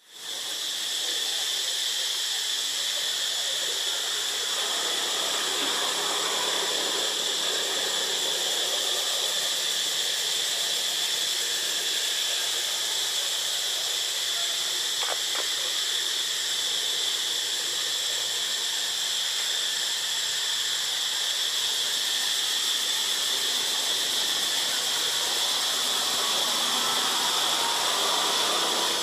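Insects droning in a steady, high continuous chorus, with no break.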